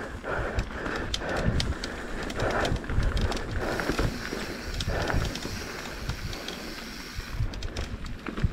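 Mountain bike ridden over a rough dirt trail: tyres on the ground and the bike rattling with many irregular small knocks, over a low rumble of wind on the microphone.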